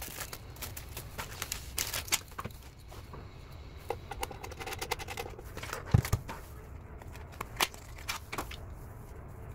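Handling noise on a desk: plastic bags crinkling and small parts, cables and cardboard being handled, in a run of scratches and clicks, with a heavier knock about six seconds in.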